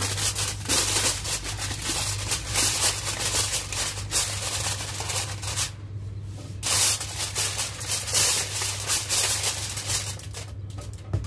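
Aluminium foil crinkling and rustling as hands press and crimp it down over a baking dish to seal it, the crackling stopping briefly twice.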